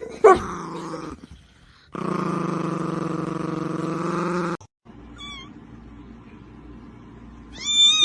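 A cat's calls: a short falling call at the start, a long, steady yowl of about two and a half seconds, and short rising meows near the end.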